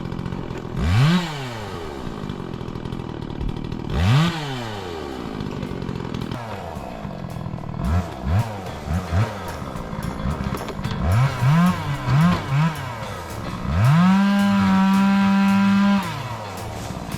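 Two-stroke chainsaw idling and being revved: two rising-and-falling revs, then a quick run of short blips. Near the end it is held at full throttle for about two seconds at a steady pitch, then drops back to idle.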